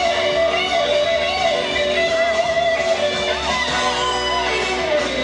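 Quadrilha dance music playing steadily, with strummed guitar prominent.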